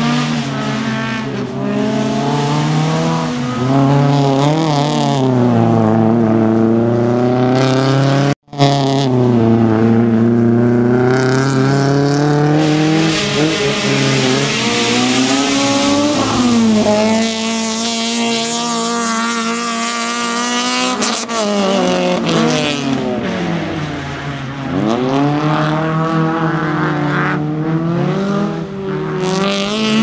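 Rally car four-cylinder engines, a Proton Satria among them, revving hard and falling away through gear changes and lifts as the cars slide through a loose gravel stage, with tyres scrabbling on the dirt. The engine pitch rises and falls over and over, holds steady for a few seconds past the middle, and cuts out for an instant about eight seconds in.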